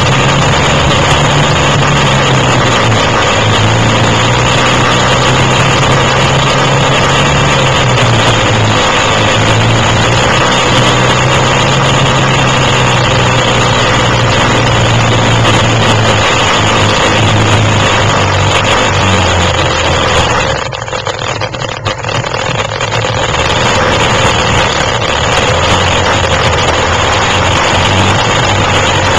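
Quad (ATV) engines running loud over rough noise, the engine note stepping up and down as the throttle changes. The sound drops briefly about two-thirds of the way through, then returns.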